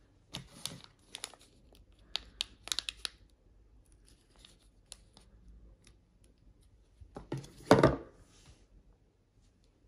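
Crinkling of a small clear plastic bag holding a small metal part, with handling noise of a derailleur cage, in scattered crackles over the first three seconds. A louder rustle and knock comes about three-quarters of the way through.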